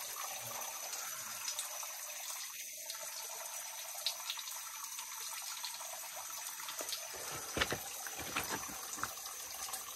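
Water trickling and dripping off a limestone rock ledge into shallow water below, a steady splashing patter. A few short sharp taps come about three quarters of the way through.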